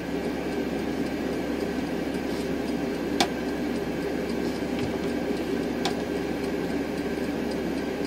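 RV kitchen-sink water pump running with a steady drone, fed through a corroded wire connection that the owner blames for inconsistent current. Two faint clicks come about three and six seconds in.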